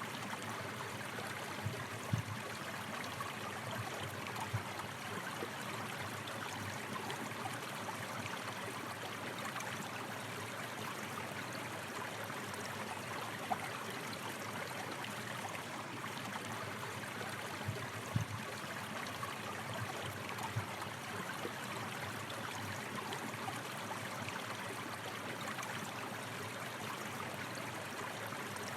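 Flowing stream water rushing steadily, with a few brief low thumps scattered through it.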